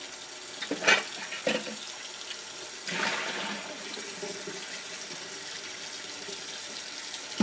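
Water running from a kitchen tap into the sink while dishes are washed by hand, a steady hiss that grows stronger about three seconds in. A couple of light knocks come about a second in.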